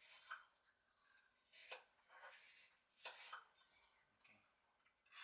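A few faint clinks of cutlery against dishes, spaced a second or more apart, over quiet room tone.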